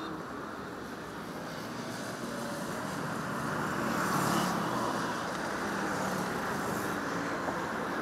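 Steady engine drone over outdoor background noise, growing a little louder a few seconds in.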